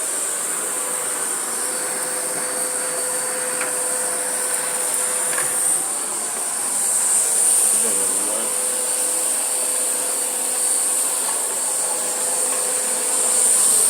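Vacuum cleaner running steadily on carpet with a high-pitched motor whine, its level swelling and easing a few times as it is pushed back and forth.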